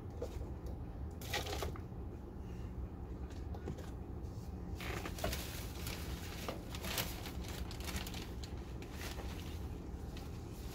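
Plastic bottles and soil being handled: irregular rustling, crinkling and light clicks, over a steady low hum.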